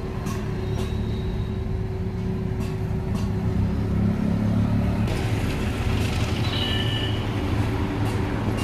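A vehicle engine idling: a steady low rumble that does not change pace.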